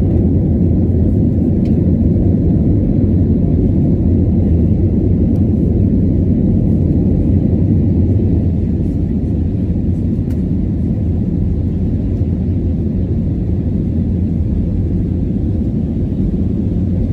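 Steady low rumble of engines and rushing air heard inside an aircraft cabin during the climb after takeoff, easing slightly about halfway through.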